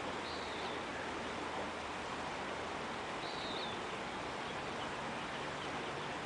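Shallow river water rushing over rocks in riffles, a steady hiss. Two faint, short, high bird chirps come through it, one near the start and one about three seconds in.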